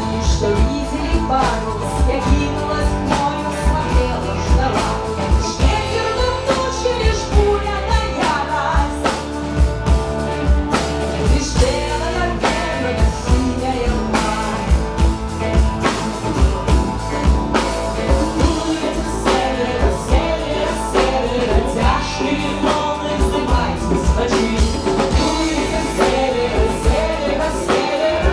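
A folk-rock band playing live: female vocals sung over guitars, violin, bass guitar and a drum kit keeping a steady beat.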